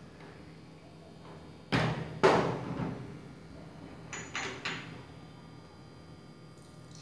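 Two loud knocks as a pitcher and jar are set down on the tabletop, then three light clinks of small glass yogurt jars knocking against each other as an empty one is taken from the tray.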